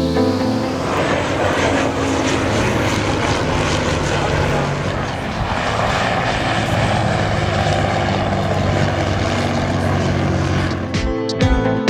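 Bristol F.2B Fighter flying past, its Rolls-Royce Falcon V12 engine and propeller running with a steady drone. Background music comes back in near the end.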